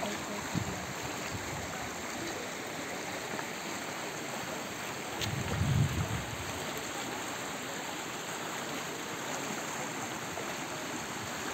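Swollen, muddy floodwater rushing past an eroded earth bank: a steady rushing noise. A brief low rumble rises and fades a little past halfway through.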